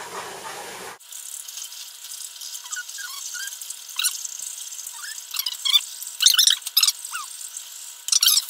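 A spoon stirring a thick paste of cocoa, sugar, flour and a little milk in a small saucepan, scraping and squeaking against the pan in short strokes that come thickest about six to eight seconds in.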